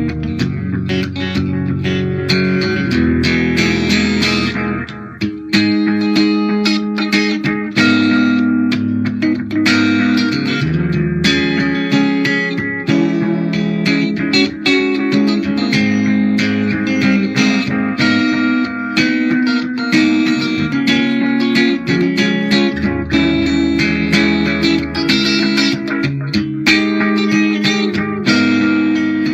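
Electric guitar played continuously with a clean, undistorted tone, improvised single-note lines mixed with chords.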